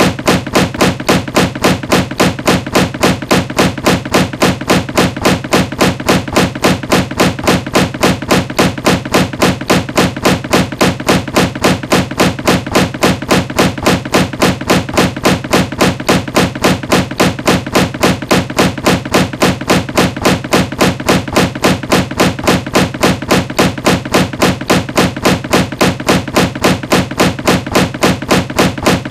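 Body tumbling down stairs: a steady, even run of thuds, about three to four a second, looped without a break.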